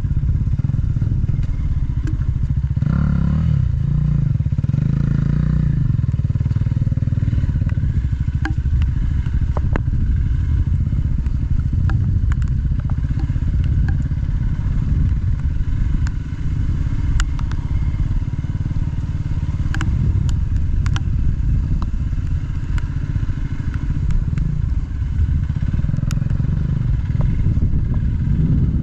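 Single-cylinder adventure motorcycle engine running at low, fairly steady revs while riding, with scattered clicks and knocks.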